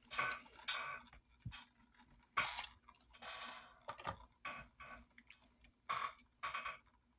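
Hands handling a diecast toy truck and its plastic and cardboard packaging: a string of irregular rustles and light clicks.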